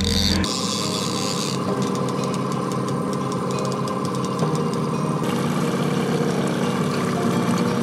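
Boat's outboard motor running steadily at trolling speed.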